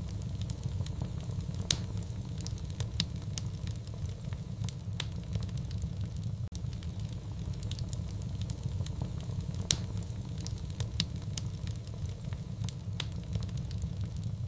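Wood fire burning in a fireplace: a steady low rumble with irregular sharp crackles and pops, two louder pops standing out about two seconds in and again near ten seconds.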